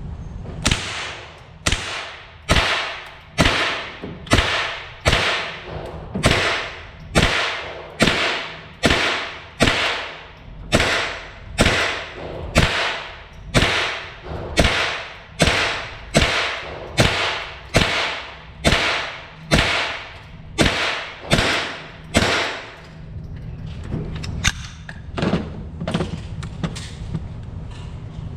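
Ruger AR-556 rifle converted to .22LR with a CMMG bolt carrier, fired semi-automatically at a steady pace of about one shot a second, some twenty-five shots in a row, then stopping about 22 seconds in, followed by a few faint clicks.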